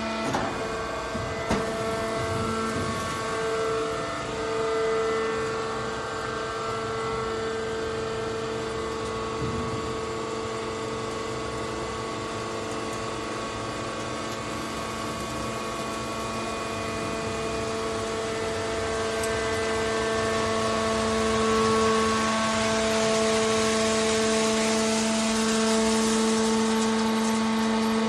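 Hydraulic scrap metal baler's power unit running with a steady hum, with a couple of sharp clicks near the start as its control levers are worked. The hum grows louder and hissier over the last several seconds.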